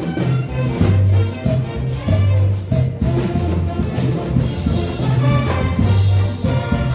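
Municipal band playing an upbeat Latin dance tune, with brass over a repeating low bass line and percussion.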